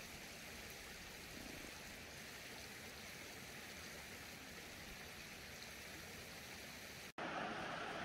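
Steady rush of flowing stream water. It cuts out for an instant about seven seconds in and comes back louder.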